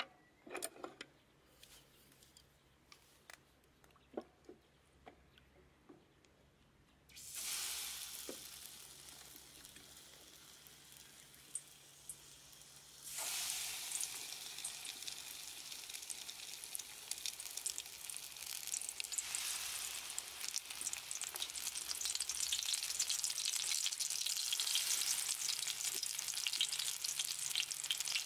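Battered taranome (Japanese angelica-tree shoots) frying as tempura in hot oil. Quiet at first with a few faint clicks, then a sudden sizzle about seven seconds in as the first pieces go in, and a second, louder onset about halfway. After that the sizzling builds toward the end as more shoots fry.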